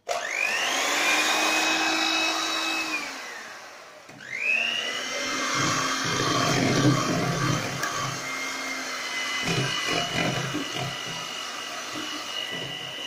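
Electric hand mixer running with its beaters in powdered whipped-cream mix and milk. The motor spins up with a rising whine and winds down about three to four seconds in. It then starts again with a rising whine and runs steadily.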